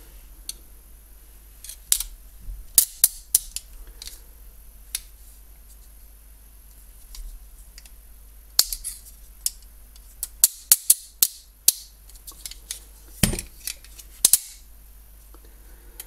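Metal clicks of TCH 842 rigid handcuffs being worked by hand, the swinging cuff arm ratcheting closed and being opened. The clicks come in scattered groups, with a quick run of them about nine to twelve seconds in.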